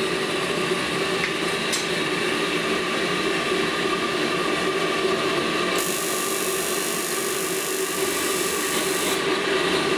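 A stripped-down Ideal Isar gas boiler runs with a steady hum. About six seconds in, a dense crackling hiss starts and lasts about three seconds: the HT coil firing the ignition spark at the electrode.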